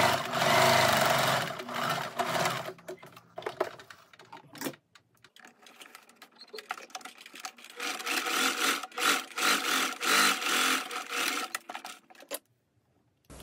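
Domestic electric sewing machine stitching linen in two runs, one over about the first three seconds and one from about seven and a half seconds to about twelve seconds. Between the runs there are a few scattered clicks from the fabric being handled. The machine stops shortly before the end.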